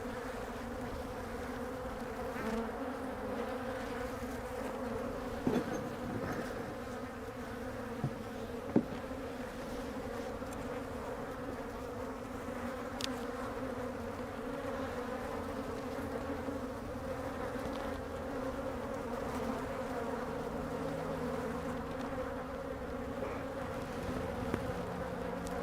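Honey bees from an opened hive buzzing steadily in a dense, unbroken hum, with a few light knocks. The bees are an aggressive colony, flying up around the beekeeper's face.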